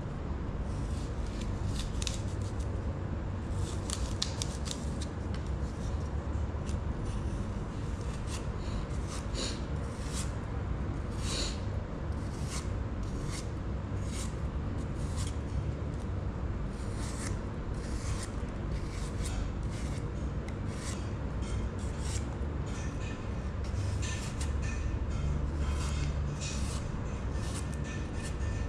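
Kitchen knife peeling the skin off an apple by hand: small, crisp cutting and scraping clicks at an irregular pace, over a low steady hum.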